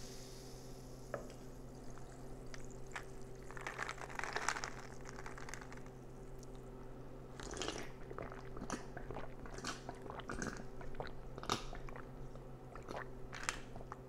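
Ice cubes clinking in a cup of freshly poured soda as it is lifted and drunk from close to the microphone, with sips and gulps; the carbonation fizz dies away in the first second.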